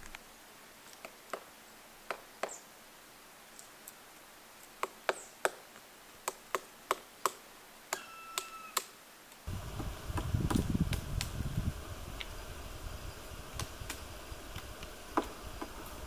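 Black woodpecker pecking at tree bark: irregular single knocks, coming faster in the middle, with a short bird call about eight seconds in. About nine seconds in, a low rumble comes in suddenly, with a few more knocks over it.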